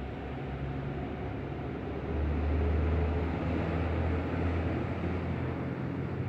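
Truck engine running with a low hum that gets louder about two seconds in, holds, then eases slightly near the end as the truck manoeuvres.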